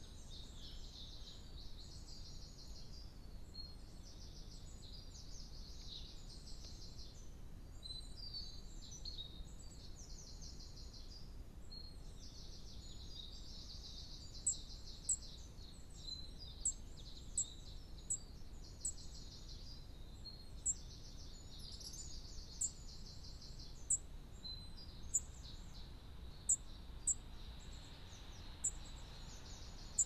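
Garden songbirds singing in repeated high, trilling phrases a second or two long. From about halfway, sharp, very high ticks join in, roughly once a second.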